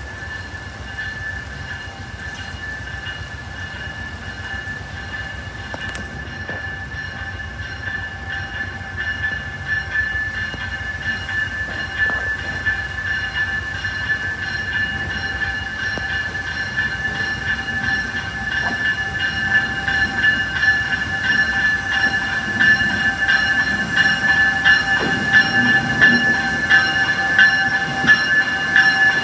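Amtrak Siemens ACS-64 electric locomotive approaching at low speed and passing close by, with a steady high whine over a low rumble that grows louder as it nears, and light wheel clicks near the end.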